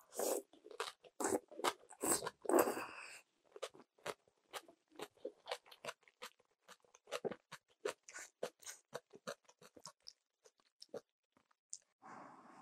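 Close-miked chewing of crisp napa cabbage kimchi with noodles. Loud crunching bites come in the first few seconds, then a long, steady run of smaller crunches as it is chewed.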